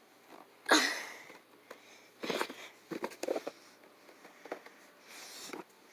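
Hard plastic Hot Wheels track pieces clicking and knocking as they are handled and fitted back together, in a few small groups of taps. About a second in there is one louder short rush of noise that fades quickly.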